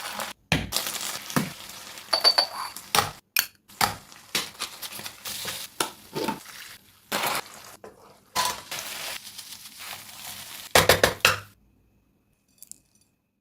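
Spatula scraping and clattering against a pan in irregular strokes as chicken is stir-fried over a sizzle. The sound stops abruptly near the end.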